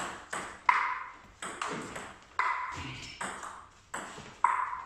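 Table tennis rally: the ball knocking sharply off the bats and bouncing on the table, about eight crisp clicks at an uneven pace of one to two a second, with one player chopping on long-pimpled rubber (Tibhar Grass D.TecS).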